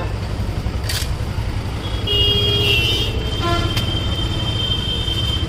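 Street traffic: a steady low engine rumble with vehicle horns, including a long high-pitched horn note from about two seconds in and a short toot about three and a half seconds in. A sharp clack about a second in.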